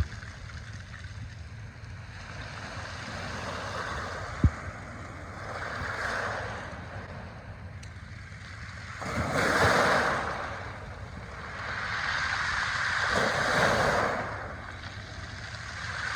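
Ocean waves washing onto the shore, swelling and fading in repeated surges, the loudest about ten seconds in. A single sharp click about four seconds in.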